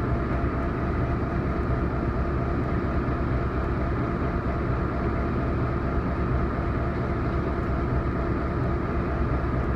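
Diesel switcher locomotive engine idling: a steady, even rumble with a faint hum that does not change.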